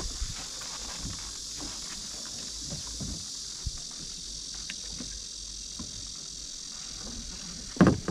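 Steady high-pitched insect chorus, with faint knocks and rustles of a kayak tie-down strap being handled on a car roof rack, and one sharp thump near the end.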